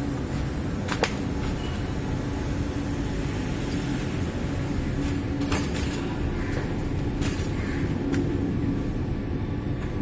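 Steady low background rumble, with a few short clicks and knocks as the reassembled bicycle's front end is handled.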